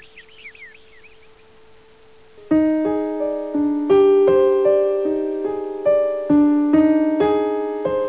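Closing music: a held note under a few fading bird chirps, then from about two and a half seconds in a slow piano melody of single struck notes, each ringing and dying away.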